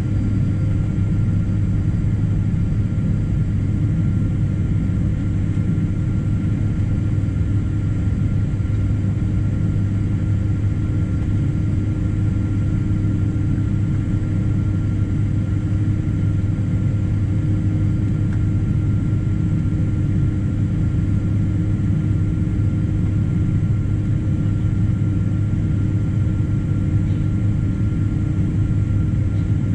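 Boeing 777-200 jet engines running steadily: a constant low hum with thin, even whine tones above it and no change in thrust.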